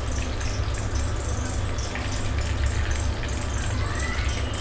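Chicken pieces deep-frying in hot oil, a steady sizzle and crackle, with a steel slotted spoon clinking against a steel plate as fried pieces are lifted out. A low steady hum runs underneath.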